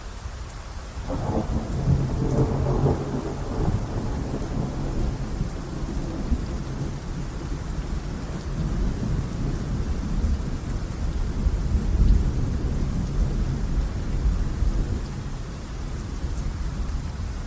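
Thunderstorm: steady rain with a crack of thunder about a second in, followed by a long low rumble that rolls on and swells again around the middle.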